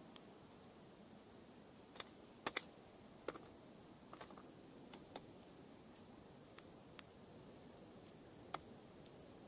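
A dozen or so light, irregularly spaced clicks of a dark-eyed junco's bill pecking at seed in a metal tray feeder, over a faint steady hiss.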